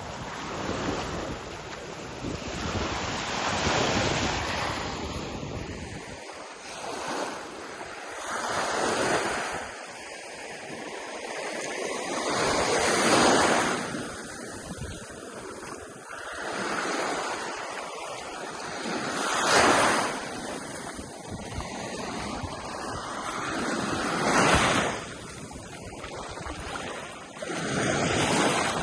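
Ocean waves breaking on the shore, the surf swelling and falling away about every five seconds. In the first few seconds wind buffets the microphone with a low rumble.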